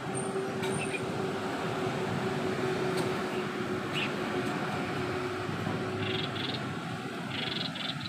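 Steady traffic rumble with a held low hum that stops about six seconds in. Birds chirp in short high bursts twice near the end, and a brief thin whistle sounds near the start.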